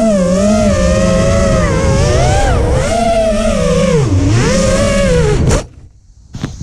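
FPV racing quadcopter's 2300 kV brushless motors and propellers whining, the pitch rising and falling with the throttle and dipping deeply about four seconds in. The whine cuts off abruptly near the end as the motors stop.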